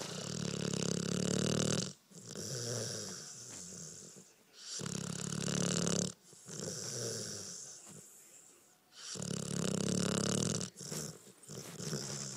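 Sleeping pit bull snoring: a loud snore roughly every four and a half seconds, each followed by a quieter breath that fades away, three cycles in all.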